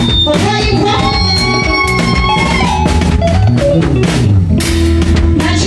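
Loud band music with guitar and a drum kit, steady drum hits under sustained instrument notes.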